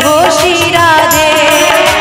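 Live Hindi devotional bhajan: a woman singing a gliding, ornamented melody over a harmonium's held tones and a hand drum.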